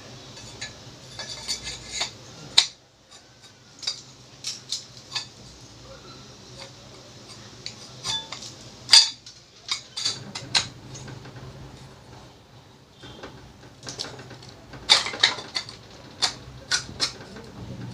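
Sharp clinks and knocks of parts as a mixer grinder motor's body is fitted back over the armature and field winding. The clicks come in scattered bunches, with the busiest stretch near the end.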